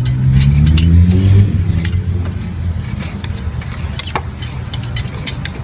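Metal spatulas clicking and scraping irregularly on the frozen steel plate of an ice cream roll machine as ice cream is chopped. A motor vehicle engine passes, loudest about a second in and then fading.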